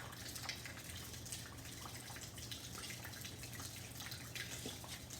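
Rain falling, with many irregular drops ticking and dripping close by over a steady hiss. A faint low hum runs underneath.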